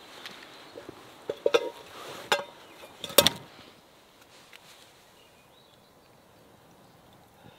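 A few sharp knocks and clinks, the loudest about three seconds in, then a faint, steady outdoor background.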